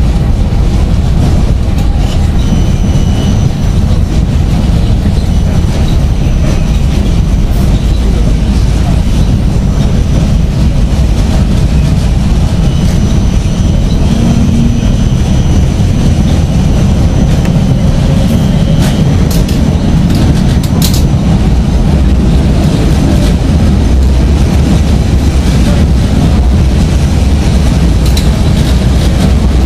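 Vienna tram running along its track, heard from inside the car: a steady rumble of wheels and running gear. Faint high-pitched whines come and go, and a few sharp clicks sound about twenty seconds in.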